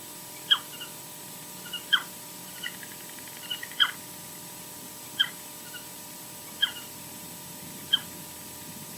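Osprey calling: a series of six short, sharp whistled calls about a second and a half apart, each dropping steeply in pitch, with softer chirps in between.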